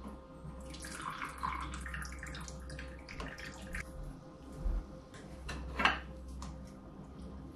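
Rose-petal water poured through the mesh filter of a glass cold-brew carafe, trickling and dripping into the glass, with a few light knocks, the loudest about six seconds in.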